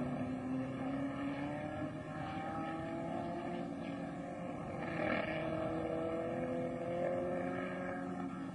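1960s open-wheel racing car engines running at speed, several engine notes overlapping, their pitch slowly rising and falling as the cars go round the circuit.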